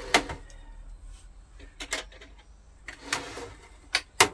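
Metal clanks and clicks of a scroll saw being tipped over on its flip-over stand: a few sharp knocks, two close together near the end, with a short scraping rub between them.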